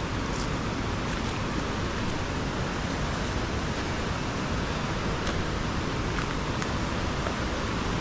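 Steady rushing of a waterfall, with a few faint crackles of footsteps on the leaf-strewn trail.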